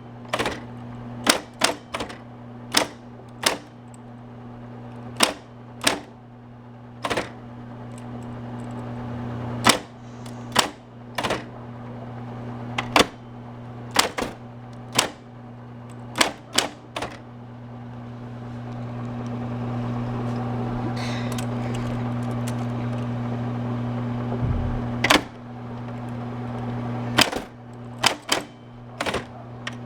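Smith-Corona Coronet Super 12 electric typewriter being typed on without a ribbon. Its motor hums steadily while the typebars strike the paper in irregular single clicks and short runs, with a longer pause in the middle.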